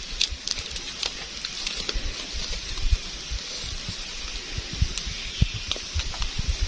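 Close-up rustling and light clicking of leaves and stems as a hand handles a flowering plant stalk, with low thumps that grow more frequent near the end, over a steady high hiss.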